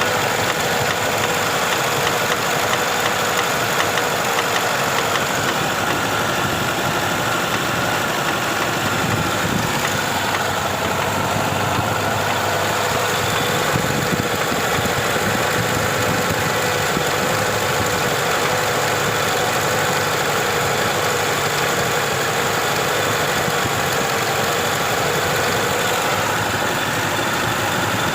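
Moskvich 412's four-cylinder petrol engine idling steadily with a knock in it: the fault the owner is recording.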